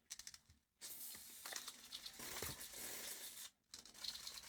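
Faint, uneven hiss of a nearly empty contact cleaner spray can sputtering, with small handling clicks.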